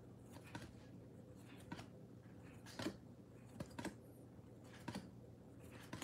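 Trading cards being flipped one by one through a stack held in the hands: soft, faint card snaps and slides, about one a second and irregularly spaced.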